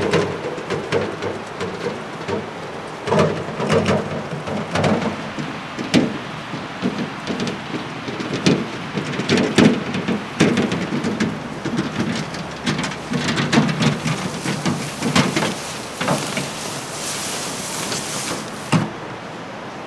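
A loaded metal wheelbarrow rattling and clattering as it is pushed over bumpy ground, with irregular knocks throughout. A sharp knock comes near the end as it is set down.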